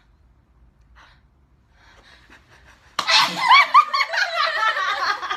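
A person sneezes suddenly about three seconds in, followed by laughter.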